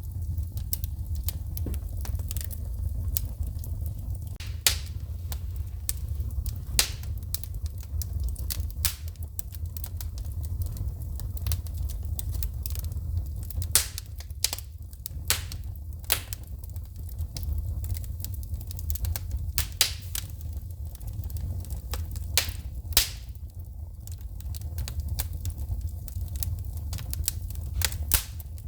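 Wood fire burning in a fireplace: steady crackling with irregular sharp pops, a few much louder than the rest, over a low steady rumble of the flames.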